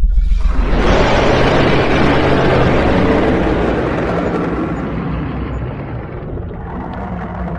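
Dragon sound effect: a deep rumble, then a long, harsh, noisy blast that swells about half a second in and slowly dies away.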